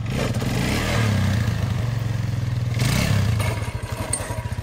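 Sport ATV engine revving hard as the quad lifts onto its back wheels, with a louder, rattly surge near the three-second mark. It then drops back to a pulsing idle near the end.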